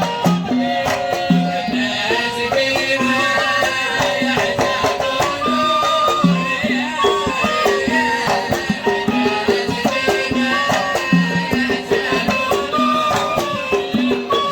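Live Gulf folk band playing a sawt Kuwaiti song. A melody moves in steps over a steady beat of low hand-drum strokes, with sharp percussive hits throughout.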